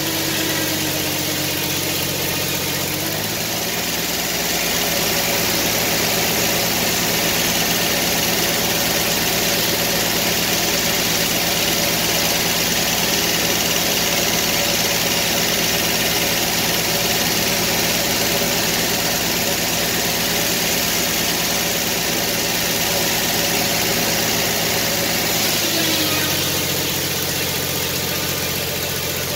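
Engine-powered circular sawmill cutting pine. The engine's pitch drops about three seconds in as the big circular blade takes the load of the cut, with a steady rushing noise of the blade going through the log, and it comes back up near the end as the blade clears the cut.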